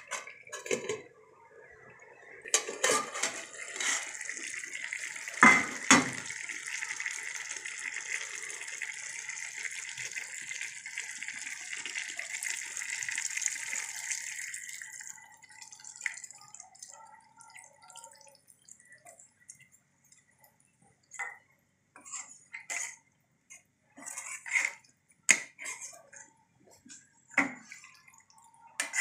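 Chicken, potato and cabbage curry sizzling in a steel pan with a steady hiss, broken by two loud metal clanks; the hiss stops about halfway, once water is poured in from a mug. Afterwards there are scattered scrapes and clinks of a metal spoon stirring the curry in the pan.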